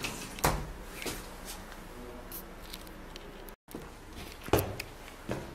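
A few scattered knocks and footfalls on a hard floor in a small, bare room, as someone walks through a doorway, with a low room hiss between them. The sound cuts out completely for a moment a little past the middle.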